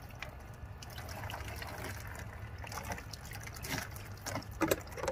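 Water poured from a plastic pitcher over a small dog's back, trickling and splashing into a shallow plastic kiddie pool. A couple of sharper, louder splashes come near the end.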